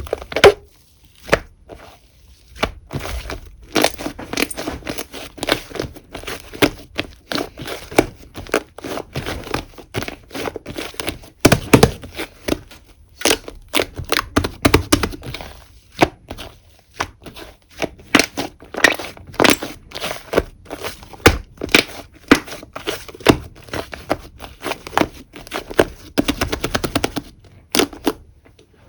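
Whipped-cream slime being squished and pressed by hand: a dense run of sticky clicks, pops and crackles, with a few short pauses.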